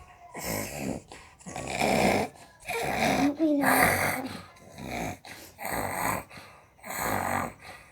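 A child snoring heavily with loud, rasping breaths about once a second; the uploader puts it down to enlarged tonsils.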